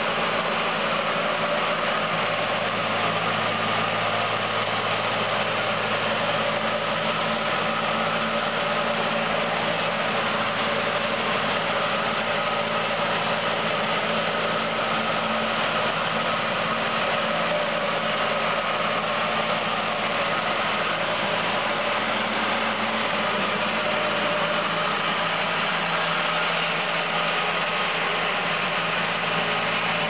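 Deutz diesel engine of a Diamond Core Cut CC6500 walk-behind concrete saw running steadily at one even speed.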